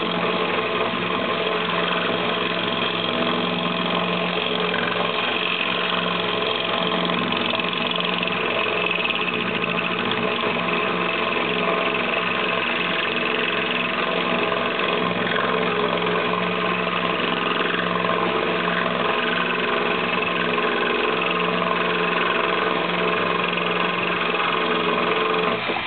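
DeWalt cordless drill driver running steadily under load, spinning a diamond hole-saw bit that grinds through aquarium glass. It cuts off sharply right at the end, as the bit breaks through the glass.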